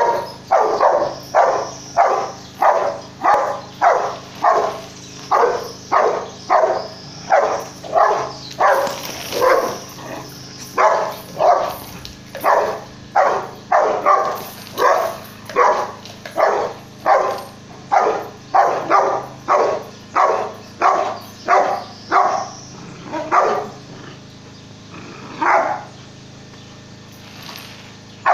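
Rottweiler barking in a fast, steady series, nearly two barks a second, while lunging at a goat. The barking stops about three-quarters of the way in, with one more bark a couple of seconds later.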